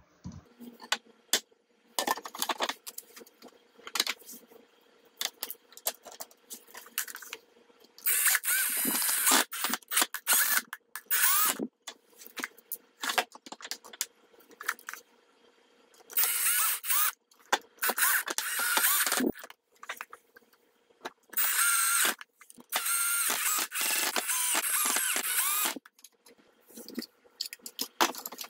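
A small power screwdriver runs in three long bursts of one to four seconds, backing screws out of the plastic tank hull. Between the bursts, plastic parts click and knock as they are handled.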